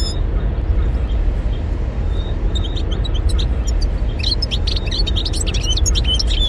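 European goldfinch singing: a few scattered twitters, then a dense run of rapid high chirps and trills in the second half, over a steady low rumble.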